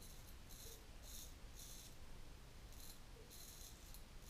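Short 2-inch Portland Razor Sprite straight razor scraping through lathered one-day stubble: a run of faint, short, high-pitched strokes about two a second, with a brief pause midway.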